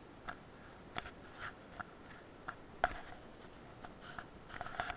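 Scattered light scratches and clicks of a cat moving about and pawing at a blanket on carpet, the sharpest about three seconds in.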